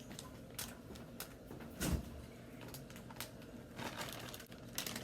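Faint rustling and light clicks of hands handling food and packaging on a kitchen counter, with a soft thump about two seconds in.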